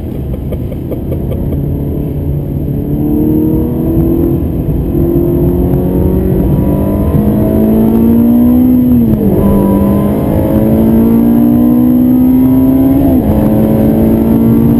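Ferrari 360 Modena's mid-mounted V8 accelerating, heard from inside the cabin. Its pitch climbs steadily, drops sharply at an upshift about nine seconds in, then climbs again to a second upshift near the end.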